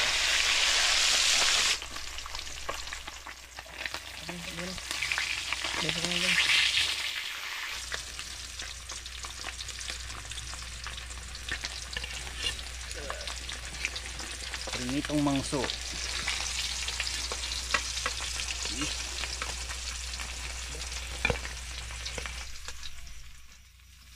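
Fish frying in hot oil: a continuous sizzle with crackles and spits. It is loudest for the first couple of seconds, drops suddenly, swells again about six seconds in, and dies down near the end.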